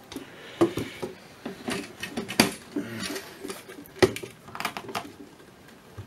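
Boxy metal autopilot modules being lifted out of their rack and set down on top of one another: a string of knocks, clunks and scrapes, the loudest about two and a half and four seconds in.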